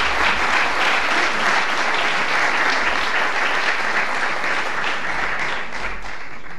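Audience applauding, a dense run of many hands clapping that thins out and fades near the end.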